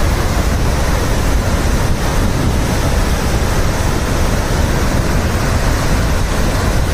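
Dam spillway in full discharge: floodwater rushing down from all the open gates and churning below. The sound is a loud, steady rush with a heavy low rumble.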